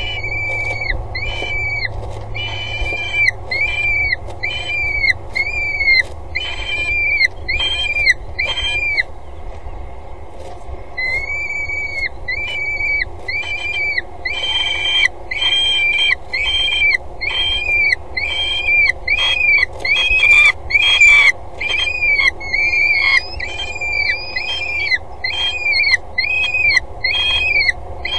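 Peregrine falcon calling over and over, about two notes a second, each note rising and falling in pitch. The calls break off for a couple of seconds about nine seconds in, then carry on, over a steady low hum.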